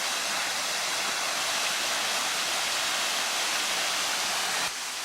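Waterfall pouring into a pool, a steady rush of falling water.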